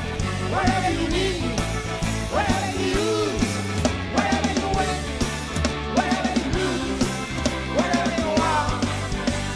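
Live rock band playing a song: a male lead singer over drums, electric guitar and bass.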